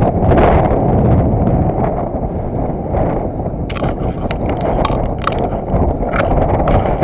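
A person wading through marsh water and dense grass: steady sloshing and rustling, with sharp crackles of stems snapping through the middle.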